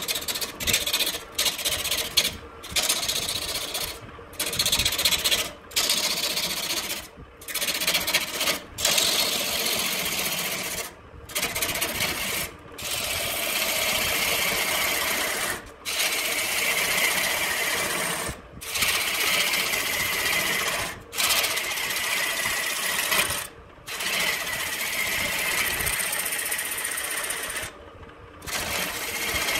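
Hand-held turning tool cutting into a red wood vase blank spinning on a wood lathe, a hissing shaving noise in repeated passes. The cuts are short and choppy over the first few seconds, then run two to three seconds each, with a brief drop whenever the tool comes off the wood.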